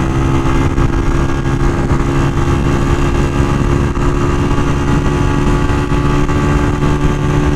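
Honda CG 125 single-cylinder four-stroke engine running steadily at highway speed under the rider, its pitch holding level, with wind rush on the microphone.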